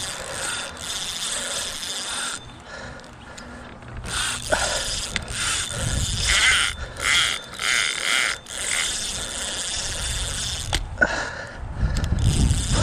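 Spinning reel ratcheting and whirring in uneven stretches while a hooked striped bass is being played on the line.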